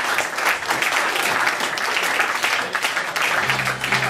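Theatre audience applauding, a dense spatter of clapping. Music with low bass notes comes in near the end.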